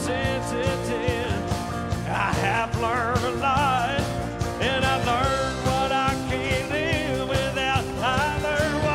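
Live country band music with steady bass and drums under a wavering lead line.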